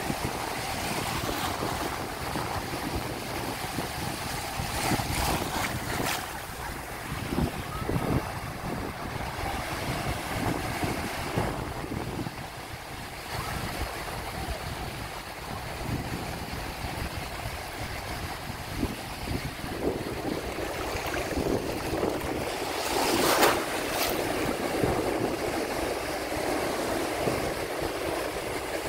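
Ocean surf breaking and washing in, a steady rush of water with uneven surges and wind buffeting the microphone. One louder burst comes about three-quarters of the way through.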